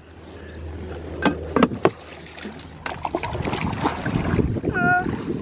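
A few sharp clicks about a second and a half in, then a rising rush of wind and water noise around a small dinghy, with a brief high squeak near the end.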